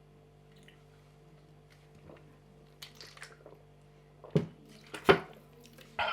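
A man downing a shot of liquor: quiet at first, then soft mouth clicks, two sharp sudden gulping or gasping sounds in quick succession past the middle, and a short voiced grunt at the very end.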